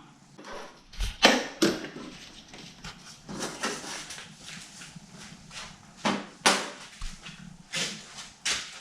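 Irregular metallic clinks and knocks of hand tools and engine parts being handled at an engine block on the bench, a few louder knocks standing out about a second in and again around six seconds in.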